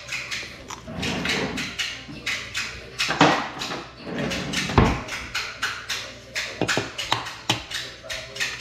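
Background music with a light tapping beat, a string of short sharp strokes over faint held tones.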